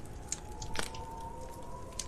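Wood fire crackling in a fireplace: scattered sharp pops and snaps, the loudest a little under a second in, over a low rumble and a faint steady tone.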